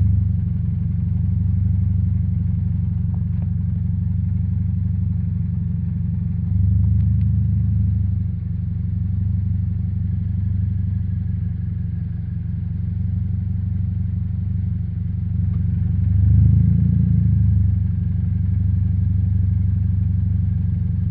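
Early Toyota 86 (ZN6) with a BE FREEE straight-pipe muffler, silencer insert fitted, its flat-four boxer engine idling warm: a steady low exhaust drone that twice swells louder for a second or so.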